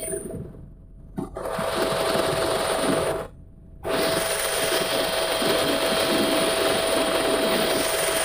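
Helicopter cabin noise in flight: engine and rotor running steadily with a constant whine. The sound cuts out briefly twice, about half a second in and again around three and a half seconds.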